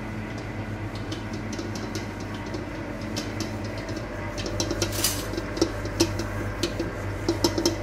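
Commercial planetary stand mixer running steadily, its beater working flour, butter and milk into pastry dough, with a scatter of light clicks from about three seconds in.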